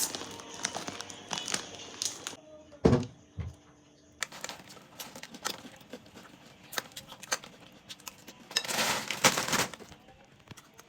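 Making a bowl of cornflakes: scattered small clicks and crinkling from the cereal bag and bowl, a single knock about three seconds in, and a short rustling pour near the end.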